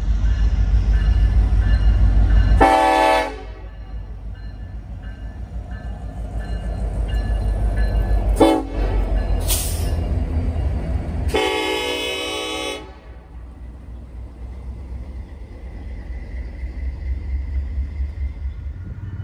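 Norfolk Southern diesel freight locomotives passing close by with a deep engine rumble, sounding the air horn three times: a short blast about three seconds in, a very brief one around eight seconds, and a longer one from about eleven to thirteen seconds. After that, double-stacked intermodal well cars roll past with steady wheel-on-rail noise.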